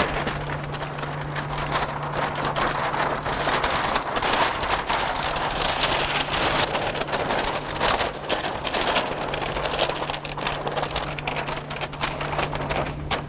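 Stiff brown paper web rustling and crackling as it is pulled by hand off its roll and threaded around the machine's steel rollers, with a steady low hum underneath.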